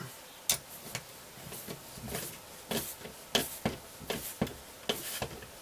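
Small spanner and hex driver tightening a nylock nut on a bolt: a string of sharp metal clicks, about two a second and irregularly spaced, as the spanner is worked round the nut.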